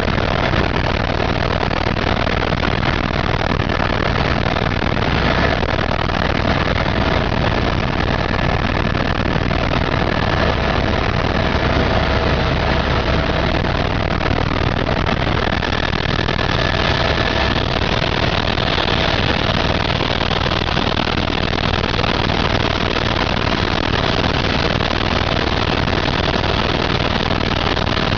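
Helicopter running steadily: a constant engine and rotor noise with a faint steady whine on top.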